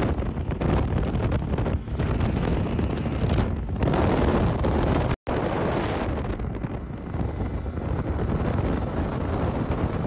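Wind buffeting the microphone and water rushing past an aluminum bass boat running at speed, with its 70 hp Mercury two-stroke outboard running underneath. The sound cuts out for a moment about five seconds in.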